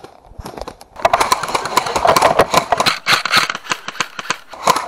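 Airsoft electric rifle (AEG) firing, its gearbox whirring through rapid full-auto bursts; a few single shots at first, then from about a second in a long stream of shots with a brief break near the middle.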